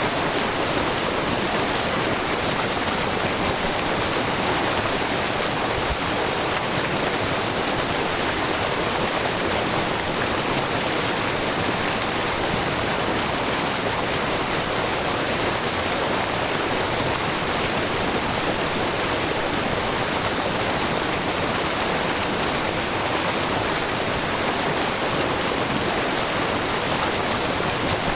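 Steady rushing and splashing of a low, wide waterfall, where many thin streams of spring water fall over a rock face, with no breaks or separate events.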